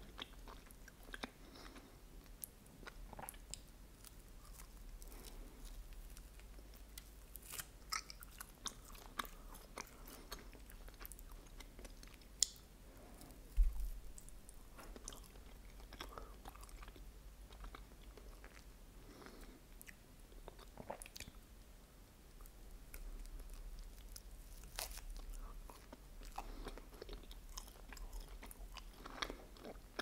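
Close-miked chewing of a chocolate ice cream wafer sandwich: soft crunches of wafer and wet mouth clicks scattered irregularly, with one louder low thump about halfway through.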